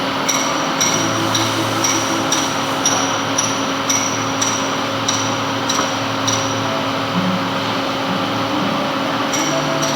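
Metal-turning lathe running with a steady hum, and a regular light tick about twice a second that stops for a few seconds near the end, as while turning a gland.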